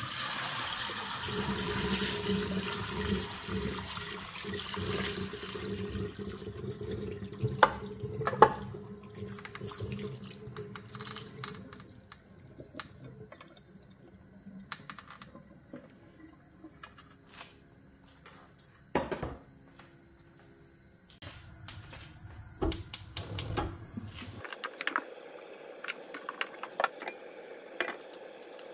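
Water pouring out of a metal pan and splashing into a kitchen sink as cooked glass noodles are drained. The rush is strongest for the first several seconds and tapers off, followed by scattered knocks and clinks of the pan.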